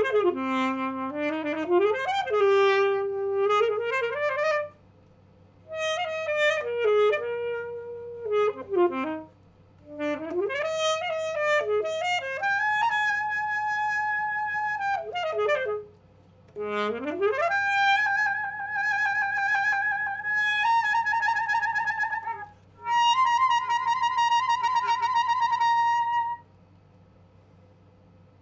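Solo alto saxophone playing phrases with swooping glides up and down, broken by short pauses. It ends on long held notes with vibrato, then stops a couple of seconds before the end.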